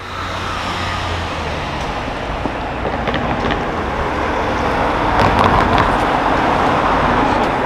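Road traffic noise, with a car driving past close by and loudest about five to six seconds in.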